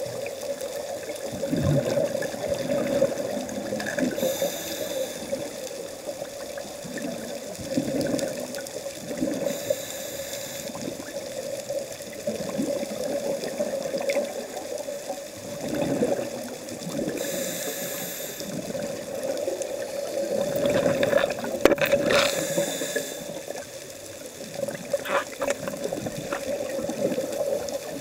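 Scuba diver's breathing heard underwater: a hiss from the regulator on each of about four inhales, every five seconds or so, alternating with the low gurgle of exhaled bubbles, over a steady hum.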